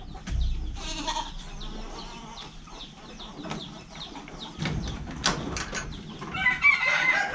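Goats bleating in a slatted wooden pen: a short call about a second in and a longer, louder one near the end. Scattered knocks and creaks of footsteps on the wooden ramp and slats run between the calls.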